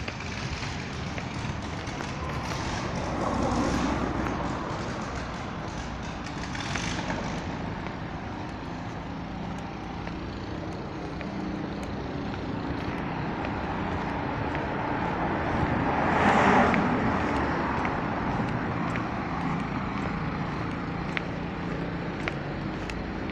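City street traffic: a steady hum of road traffic that swells twice as vehicles pass, once about three seconds in and more loudly about sixteen seconds in.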